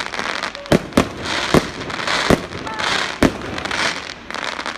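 Fireworks exploding: a string of sharp bangs, about five in the first three and a half seconds, over a continuous crackling hiss.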